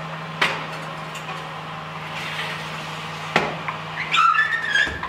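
A metal cake tin clinking twice on a wire oven rack as it is slid into the oven, over a steady low hum that stops just before the end. A brief high-pitched sound comes near the end.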